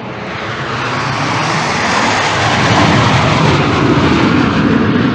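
Canadair CT-114 Tutor jet trainer's turbojet engine: a loud, steady rushing jet noise that grows louder over the first two seconds or so and then holds steady.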